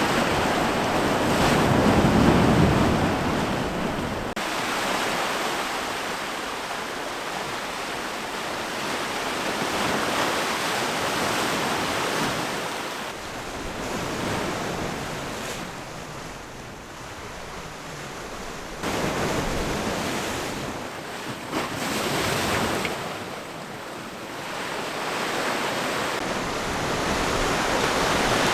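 Ocean waves breaking and washing in, swelling and fading every few seconds, with wind buffeting the microphone.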